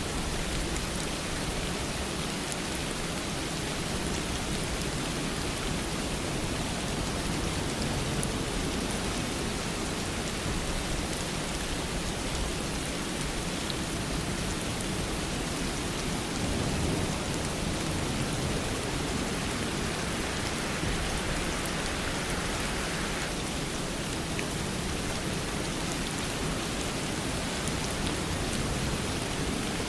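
Steady rain falling, an even, continuous hiss with no pauses.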